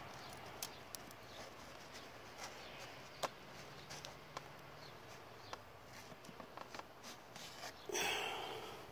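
A foam air filter being worked out of a Kawasaki KLR650's plastic airbox by hand: faint scattered clicks and scrapes, then a louder rustling scrape about eight seconds in as the filter comes free.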